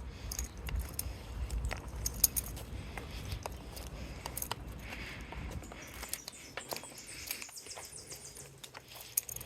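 Footsteps on a walking path with light clicks and jingling, and a low rumble on the microphone for the first six seconds or so. A bird chirps faintly from about seven seconds in.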